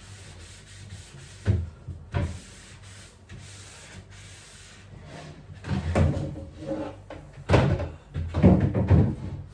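Fridge being cleaned by hand: a couple of sharp knocks as parts are handled, a stretch of wiping and rubbing, then a busier clatter of knocks near the end.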